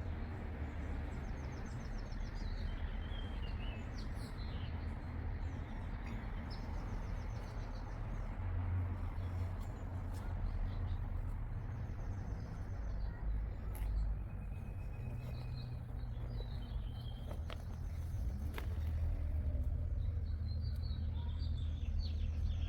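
Small birds chirping and trilling on and off, over a steady low rumble of outdoor background noise.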